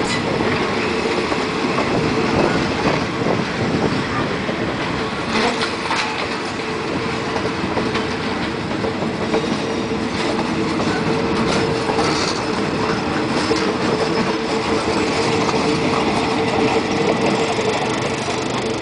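Passenger coaches of a departing train rolling slowly past at close range, their wheels clattering over the rail joints. A steady squealing tone runs underneath the clatter.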